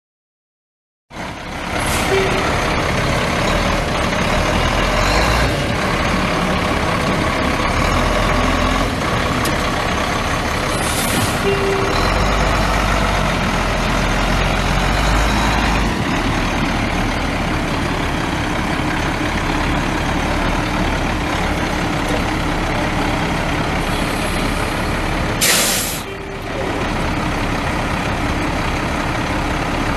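Cummins ISB 5.9-litre inline-six turbo diesel of a 1997 Ford F800 truck running steadily. About 25 seconds in there is a short, sharp hiss of air from the truck's air brake system.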